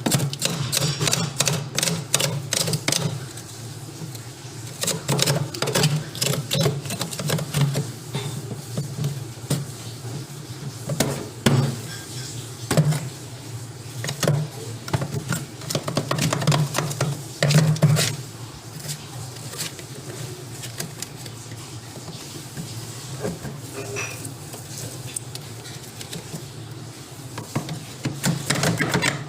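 Irregular knocking and clicking of a tool chipping and prying built-up ice out of a fridge's freezer compartment, with a rough low hum underneath.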